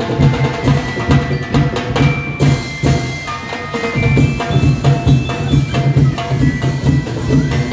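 Live percussion band playing: drums beating a fast, steady rhythm of about four strokes a second, with higher wooden knocks over the beat.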